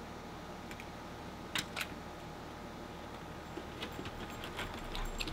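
Two sharp clicks close together about a second and a half in, the latch of a storm door being opened, then faint scattered ticks as a dog steps out onto a wooden deck.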